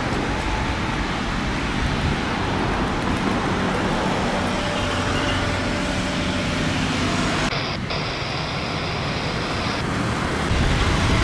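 Steady rumble of traffic and engine noise with a faint steady hum in it. The sound changes abruptly about three-quarters of the way through, losing its hiss.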